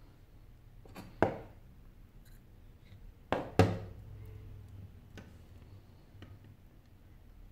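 Sharp clicks and taps of a metal pry tool against the edge and back of a Sony Xperia Z5 smartphone as the back panel is pried open. There are two quick pairs of clicks, the louder pair about halfway through, and a few fainter ticks near the end.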